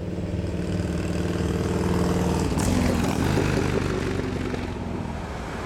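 A small motor vehicle's engine drives past. It grows louder as it approaches, its pitch shifts as it passes about two and a half seconds in, and it fades as it moves away.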